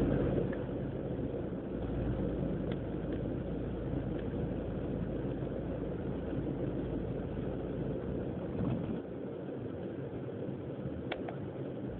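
BMW E36 318ti's four-cylinder engine idling roughly, a fault the owner has not cured; a new idle control valve helped only slightly. The level drops a little about nine seconds in.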